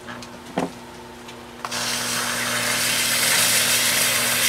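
A hand-held rib is scraped against a spinning bat on an electric potter's wheel, making a loud, even scraping hiss from a little under two seconds in, over the steady hum of the wheel's motor. There is a single knock about half a second in.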